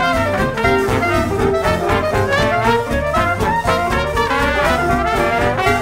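Upbeat background music with brass horns and a steady swing beat.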